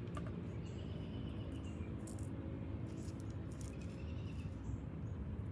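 Steady low background hum with faint high chirps and a few light clicks.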